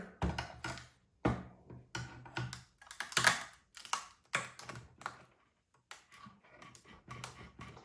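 Pry bar clicking, tapping and scraping against the Tesla onboard charger's housing as it is worked in to pry the unit apart: irregular sharp clicks and knocks, with the loudest about three seconds in.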